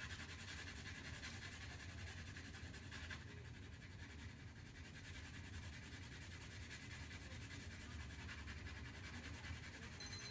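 Pencil shading on drawing paper: faint, steady, rapid back-and-forth scratching of graphite, with a low hum underneath.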